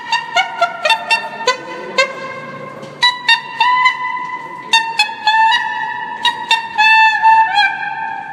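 Two sopranino saxophones improvising together in free jazz: quick, sharply tongued high notes at first, then longer held tones that rub against each other, with a wavering trill about seven seconds in.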